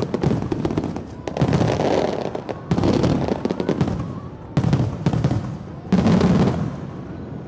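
Fireworks display: aerial shells bursting one after another, four sharp booms about a second and a half apart, each trailing off in crackling and a rolling rumble.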